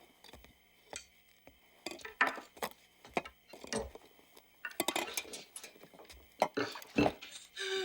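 Irregular clinks and knocks of hard objects, some with a short ringing tail, coming more often in the second half.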